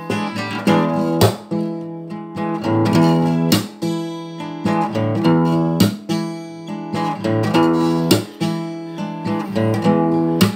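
Steel-string acoustic guitar played solo: chords strummed with a sharp stroke roughly every two seconds, with picked notes ringing in between.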